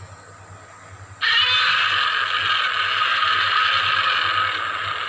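Godzilla's roar from the 1954 film, made by drawing a resin-coated leather glove along the strings of a double bass: one long grating roar that starts suddenly about a second in and holds on.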